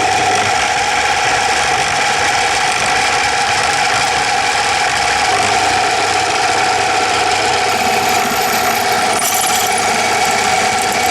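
Milling machine running steadily with a 6.5 mm drill bit fed down into the Triumph T140's aluminium primary case, drilling out a stripped thread hole to tapping size for a Helicoil. A steady machine hum with a few fixed tones, even in level throughout.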